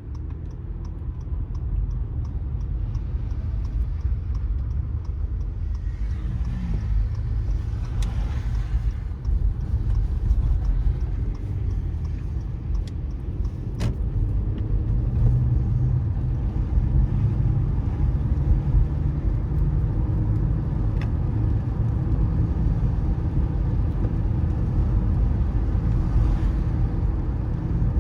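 Car driving on a wet city road: a steady low road and engine rumble that grows louder over the first couple of seconds, with a brief swell of hiss about six to nine seconds in.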